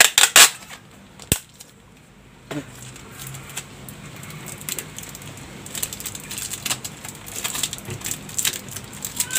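Plastic bottles, cap and clear hose of a homemade fermentation airlock being handled: a few sharp clicks in the first second and a half, then a run of light, irregular crackles and taps.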